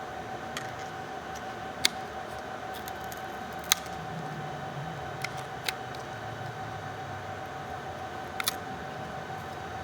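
Sharp, isolated clicks and taps of laptop parts being handled, seven of them spread irregularly, two in quick succession near the end, over a steady high-pitched hum.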